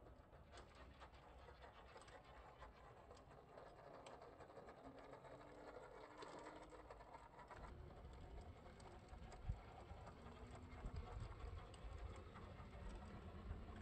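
Near silence: faint outdoor ambience with a few soft ticks, growing slightly louder toward the end.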